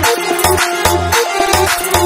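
Background music with a steady beat and repeating bass notes.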